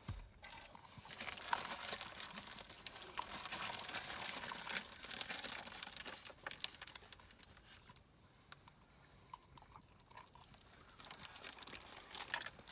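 Paper food wrapper crinkling and rustling as it is handled, busiest for the first several seconds, quieter for a while, then rustling again near the end.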